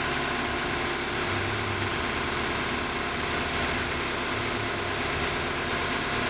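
Wheel loader's diesel engine running steadily, with a steady mechanical whine over it, while operated in a 0°F cold chamber.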